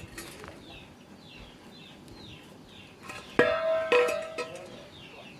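Two sharp knocks a little over half a second apart, each ringing briefly with a pitched tone, like a hollow object being struck. Behind them a bird gives short, repeated downward chirps.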